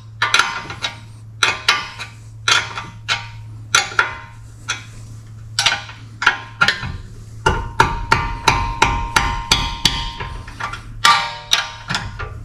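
Hammer blows on metal: a steady series of sharp strikes, each with a short metallic ring, over a low steady hum. After about seven seconds the strikes come faster and heavier.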